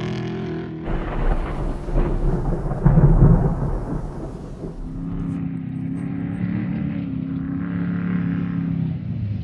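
Off-road race truck passing at speed: a loud, noisy engine and dirt rumble that swells to a peak about three seconds in, then settles into a steady engine note.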